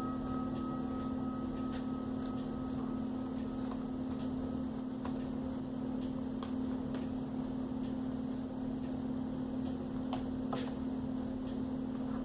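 A steady low hum, with a few faint scattered clicks and taps from small laptop parts being handled as the display cable connector is fitted into the new screen.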